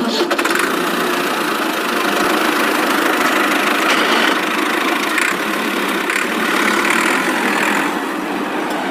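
A steady, even engine running sound with a rattly texture, cutting in sharply as the music stops.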